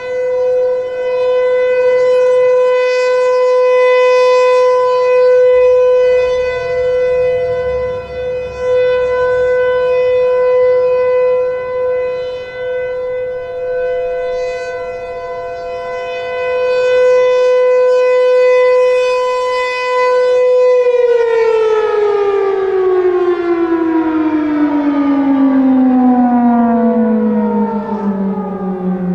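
Federal Signal Thunderbolt 1000 outdoor warning siren holding a steady tone that swells and fades in loudness. About 21 seconds in it winds down, its pitch falling steadily.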